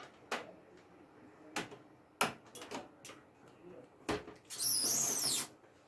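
HDMI cable being handled and plugged into a desktop computer's port: a series of light clicks and knocks, then, about four and a half seconds in, a loud high squeak or scrape lasting about a second, wavering in pitch.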